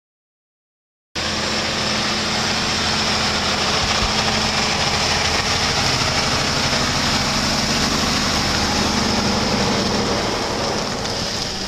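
Mack diesel tractor-trailer running steadily as it pulls a loaded flatbed out past the camera. The sound starts abruptly about a second in.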